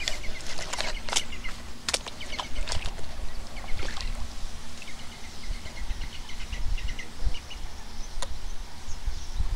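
Spinning fishing reel being wound while playing a fish, giving a run of fast light ticks about halfway through, with scattered clicks, water sloshing and wind rumbling on the microphone.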